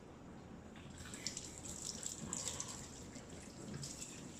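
Tap water running into a sink, starting about a second in, faint and uneven.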